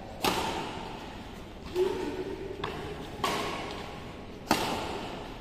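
Badminton rackets striking a shuttlecock four times in a rally, about one and a half seconds apart, each sharp hit echoing in a large hall.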